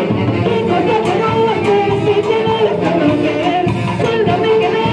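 Live Latin dance band (orquesta) playing loudly and continuously, with a sung melody over the instruments.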